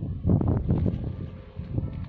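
Wind buffeting the microphone in uneven gusts, loudest about half a second in.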